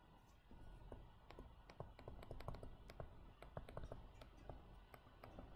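Faint, irregular clicking and tapping of a stylus on a tablet or pen display during handwriting, starting about half a second in.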